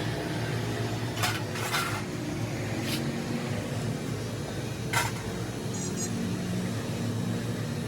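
A steady low mechanical hum, like a motor running, with a few short sharp clinks over it, four in all.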